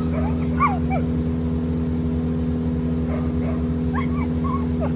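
A dog whining in short high yips, a few bunched early on and again near the end, over the steady drone of tree-trimming machinery's engine running.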